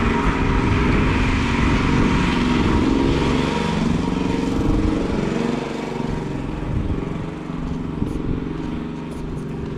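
Portable generator engine running steadily under load, easing off a little in level after about six seconds.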